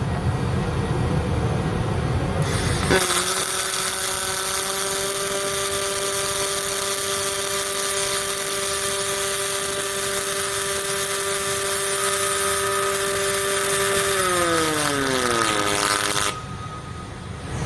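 A machine's electric motor starts with a sudden loud, high hiss and runs at a steady pitch. About 14 s in its pitch falls away as it spins down, and it stops shortly after.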